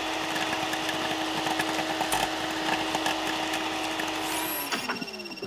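Vacuum cleaner sound effect running with a steady hum and whoosh, small paper scraps rattling as they are sucked into the nozzle; it cuts off near the end.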